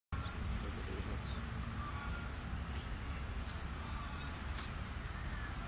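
Outdoor park ambience: steady high-pitched insect trilling with a few faint bird chirps over a low, steady rumble.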